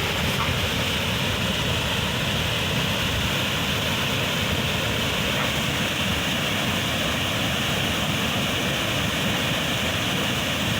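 Waterfall's steady rush of falling water, an even roar with no breaks.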